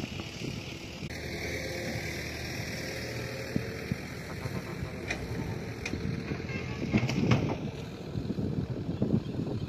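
Wind and handling noise on a handheld microphone over a low rumble, with louder rustling bursts about seven seconds in and again near the end.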